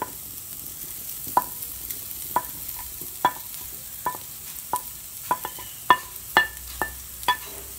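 A wooden spatula scrapes shredded boiled chicken off a plate into a hot kadai of onion masala. About a dozen sharp, irregularly spaced knocks ring out as the spatula strikes the plate, over a faint steady sizzle.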